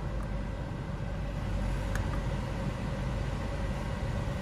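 Hyundai Accent engine idling steadily, heard from inside the cabin, at the raised idle of about 1,500 to 2,000 rpm that follows a start.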